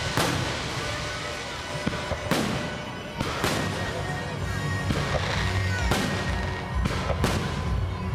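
Aerial fireworks shells bursting in the sky: about six sharp bangs at irregular intervals, with music playing underneath.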